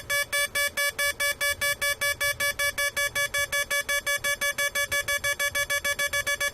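Atari Punk Console sound-effects circuit beeping: a buzzy square-wave tone keyed on and off by the first oscillator, which is gating the second. The beeps speed up from about four to about seven a second as the first oscillator's frequency is turned up.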